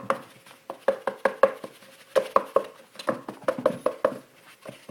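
Paper towel roll patting a cat's body in quick, uneven hollow taps, about three or four a second, with a short pause near the end.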